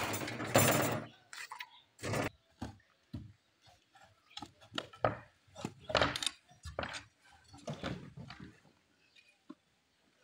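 Irregular metal clinks, knocks and scrapes of hand work on a building site: a steel rebar cage being handled, then shovels scraping through mortar. The loudest clatter comes in the first second.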